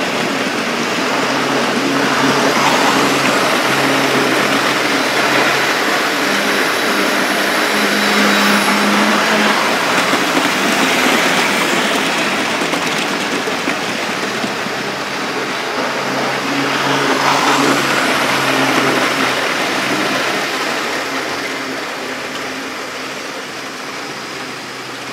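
Several OO-gauge model trains running past on the layout, among them a Wills kit-built Crab 2-6-0 on a goods train and a Hornby Dublo circus train on three-rail track: electric motors humming steadily and wheels running over the rails. The sound swells several times as trains pass close and fades off near the end.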